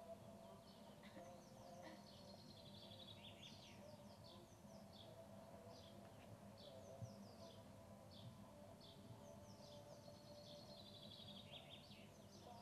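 Faint chirping of small birds: many short, quick chirps that sweep downward, coming in scattered runs throughout, over a faint steady low hum.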